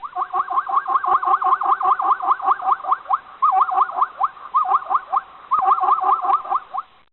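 An animal calling in a fast series of short rising chirps, about five a second, in runs broken by brief pauses.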